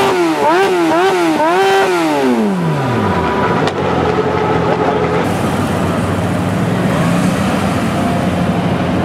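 Sport motorcycle with an aftermarket cone exhaust being revved hard: three quick throttle blips high in the rev range, then the revs falling away over about a second and a half to idle. After that comes a steady engine idle.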